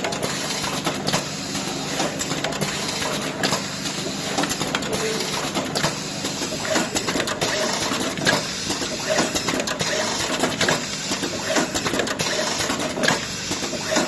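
Horizontal pouch-packing machine running: a steady mechanical clatter of frequent irregular clicks and knocks.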